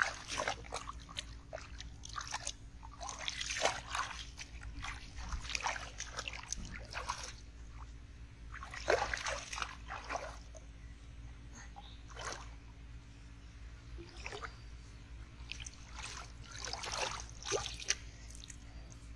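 Shallow muddy water splashing and sloshing in irregular bursts as hands and legs move through it grabbing at fish, with water trickling off hands into a pot near the end.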